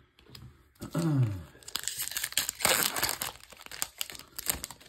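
Crinkling and tearing of a Magic: The Gathering booster pack's foil wrapper as it is ripped open and crumpled by hand, a dense crackle lasting about three seconds. A short hummed voice sound with a falling pitch comes just before it.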